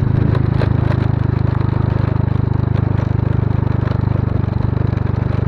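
Motorbike engine running at a steady speed with a fast, even firing beat.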